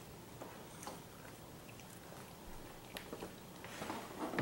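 Rubber spatula scooping whipped pie filling from a glass bowl and dropping it into pie crusts: faint soft clicks and squishes, a few more near the end.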